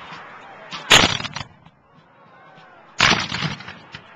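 Two ragged volleys of musket fire from a line of Civil War reenactors, about two seconds apart, each a short crackle of many shots going off nearly together.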